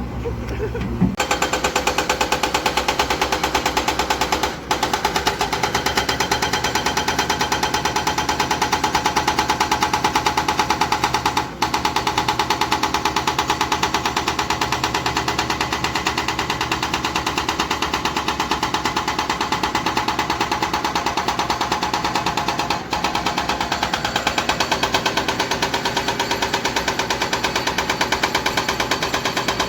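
Hydraulic breaker hammer on a Kobelco excavator pounding rock: a fast, steady stream of blows that starts about a second in, with three brief breaks.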